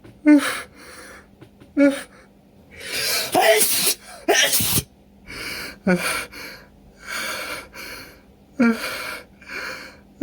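A person sneezing again and again in a fit brought on by sniffed chhinkni: several sharp, forceful sneezes in quick succession, with gasping breaths between them.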